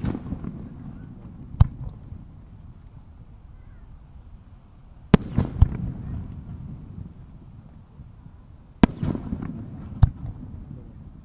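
Round-burst aerial firework shells bursting with five sharp bangs, in three spells a few seconds apart. Each bang is followed by a rolling low rumble of echo.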